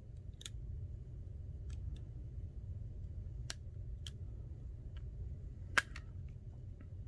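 Small precision screwdriver and tiny screws clicking and tapping against the iPhone's metal frame, in scattered single clicks with the loudest one about three-quarters through, over a low steady background hum.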